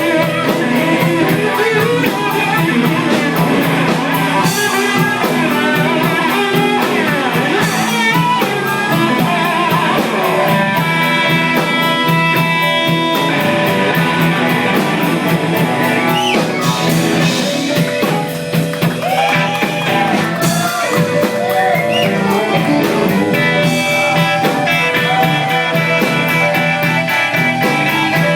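Live blues band playing, with a guitar carrying the lead and notes bent up and down over a steady band.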